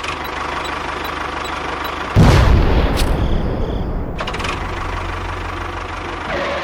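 An engine running steadily with a low rumble, and a sudden loud boom about two seconds in that dies away slowly back into the running noise.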